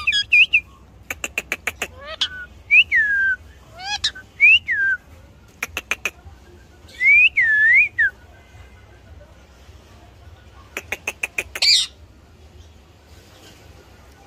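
Indian ringneck parakeet calling: short whistled squawks that swoop up and down in pitch, mixed with three bursts of rapid clicks.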